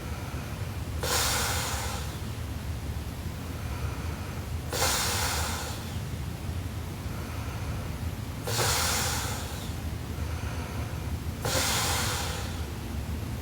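A sleeping young woman snoring: four loud, airy breaths about three and a half seconds apart, over a steady low hum.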